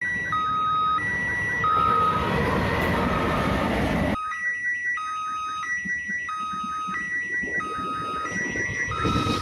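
Railway level-crossing warning alarm sounding: an electronic two-tone signal alternating high and low about every 0.6 s, over a loud rumble that drops away abruptly about four seconds in.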